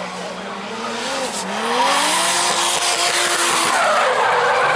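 A drifting car's engine revs up, rising in pitch about a second and a half in, then its tyres squeal loudly as the car slides sideways across the asphalt.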